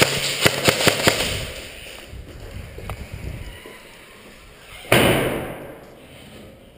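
Airsoft guns firing a rapid string of sharp shots, about six a second, echoing off concrete walls for the first second or so. About five seconds in comes a single sudden loud burst of noise that fades over a second and a half.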